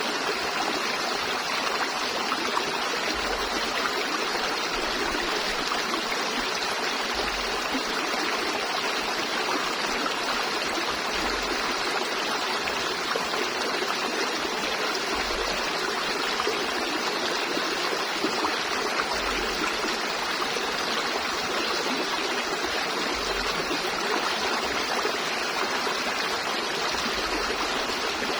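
River water flowing steadily: a constant, even rush of water.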